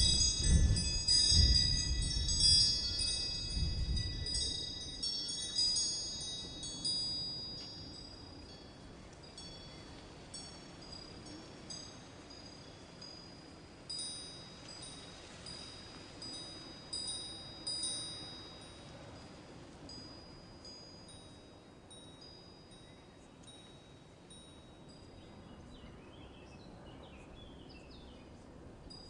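Wind chimes tinkling, many high ringing notes overlapping and dying away. The ringing is busy at first over a low rumble, then thins to sparse, fainter strikes in the second half.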